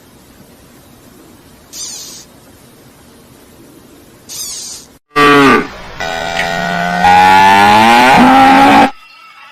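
Cow mooing: a short moo falling in pitch about halfway through, then one long moo of about two seconds that stops shortly before the end. Before the calls there are only two brief soft noises.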